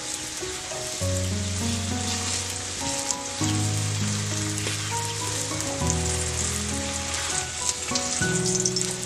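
Oil sizzling steadily as a flatbread shallow-fries on a flat iron griddle. Instrumental background music of held notes, changing every second or so, plays over it.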